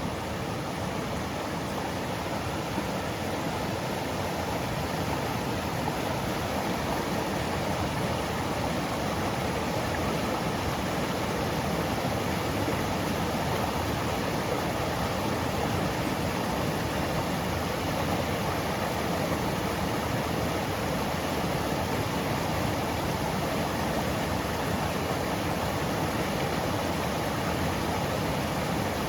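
Mountain stream flowing steadily over rocks and pebbles: an even, continuous rushing of water.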